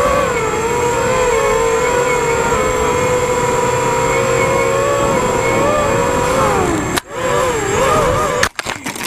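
Electric motors and propellers of a multirotor FPV drone, heard from its onboard camera: a steady whine from several motors at slightly different speeds, the pitch wavering with the throttle. About seven seconds in it cuts out with a sharp knock, whines unevenly again for a moment, then a second sharp knock as the drone crashes and ends up on its side.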